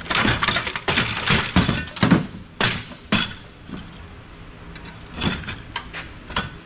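Snapping, knocking and rattling of metal and plastic parts as the wiring inside a large office copier is cut and pulled loose. There is a quick run of sharp clatter over the first three seconds, then a few more knocks about five seconds in.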